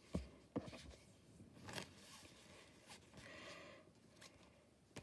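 Faint handling of trading cards on a fabric play mat: a few light taps in the first two seconds, then soft rustling and sliding as the cards are moved about.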